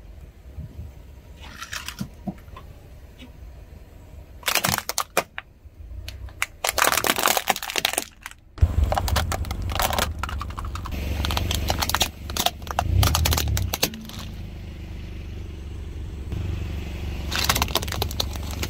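Plastic toys crushed under a slowly rolling car tyre: rapid cracking and crunching in several bursts. After about eight and a half seconds a steady low rumble runs beneath the cracks.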